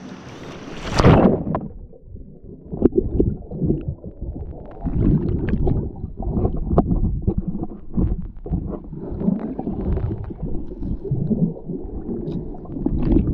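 A splash about a second in as the microphone goes under the water. Then muffled underwater sound: a low rumbling churn of moving water and bubbles, with scattered small knocks.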